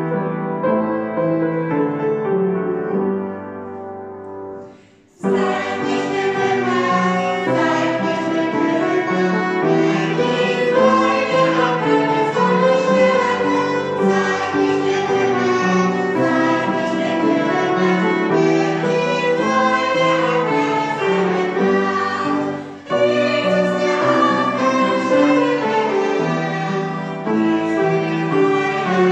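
Piano playing and fading away, then from about five seconds in a group of adults and children sings a German hymn to piano and violin accompaniment, with a brief break about twenty-three seconds in.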